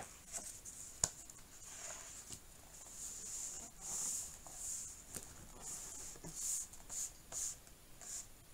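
Hands handling an open paperbound book on a desk: two sharp taps in the first second as it is set down, then a series of soft paper swishes as palms rub across its pages to press them flat.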